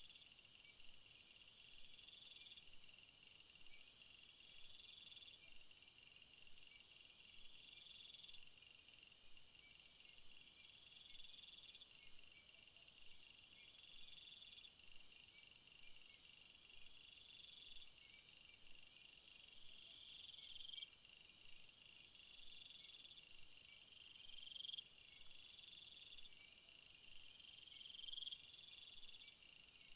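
Faint nature ambience of chirping crickets and singing birds: a steady high, pulsing chorus with a short rising call repeated about every two seconds.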